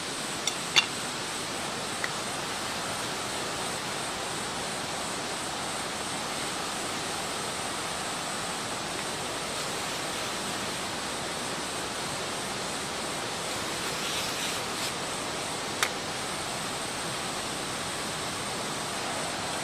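A stream rushing steadily, with a few sharp small knocks, the loudest just under a second in and another about three-quarters of the way through.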